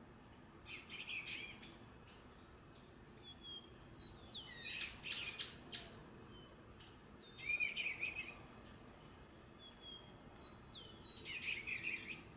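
Male eastern bluebird singing soft warbled phrases every few seconds, with short whistled notes between them. A few sharp clicks come about five seconds in.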